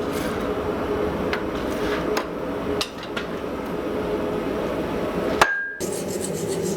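Hammer blows on hot steel forging, struck irregularly over a steady hum, with one louder, ringing strike about five and a half seconds in, after which the sound drops out briefly.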